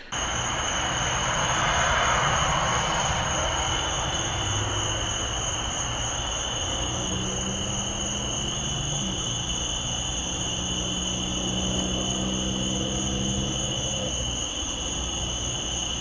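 Continuous chorus of insects: two steady shrill tones, one high and one higher, over a low droning hum that comes in about four seconds in and fades near the end.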